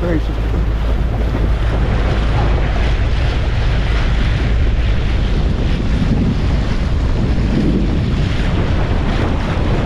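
Wind buffeting the microphone with a steady low rumble, over the rush and splash of choppy lake water.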